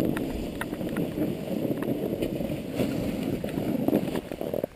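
Snowboard sliding and scraping over packed snow, with wind buffeting the GoPro's microphone. The noise eases off near the end as the rider slows to a stop.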